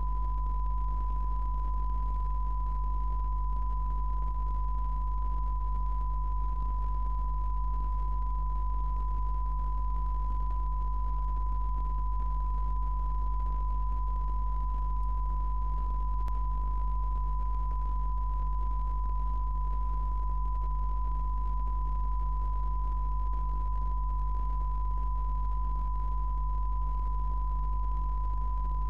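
Television test-card tone: a single steady pure 1 kHz reference tone held without a break, with a low mains-like hum beneath it.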